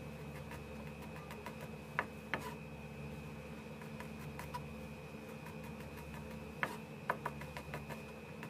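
A chef's knife slicing garlic cloves on a plastic cutting board: irregular light taps of the blade on the board, a few sharper knocks about two seconds in and again near the end. A steady background hum runs underneath.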